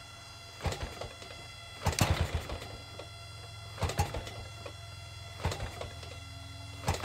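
Large two-stroke gasoline engine on a giant-scale model plane being turned over by hand-flipping its propeller, each flip giving a short knock, about every one to two seconds. The engine does not catch.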